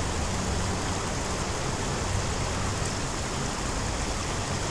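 Steady outdoor rushing noise with a low rumble underneath, unchanging throughout.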